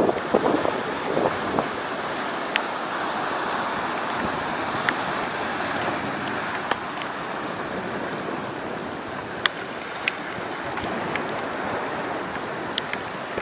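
Strong wind and rough sea: a steady rushing noise of wind and waves, with a few sharp clicks scattered through.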